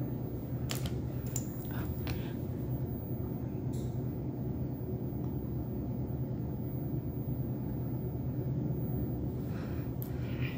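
Steady low electrical or ventilation hum of a small room, with a few faint light ticks in the first couple of seconds.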